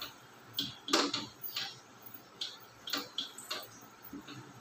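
Marker pen writing on a whiteboard: a string of short, separate squeaks and taps, about one stroke every half second, the strongest about a second in.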